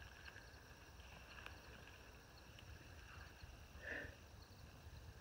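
Near silence: faint outdoor background with one brief soft sound about four seconds in.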